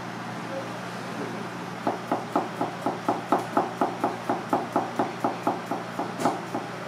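Misono chef's knife slicing a cucumber into thin rounds, the blade knocking on the cutting board in a quick, even run of about four strokes a second that starts about two seconds in.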